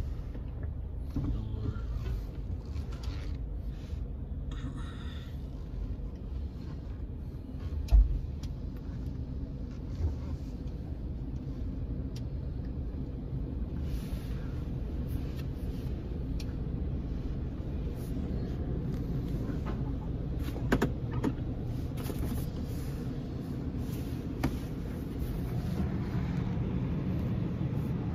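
Steady low rumble of a car's engine and road noise heard from inside the cabin, with a sharp thump about eight seconds in and a few lighter knocks later.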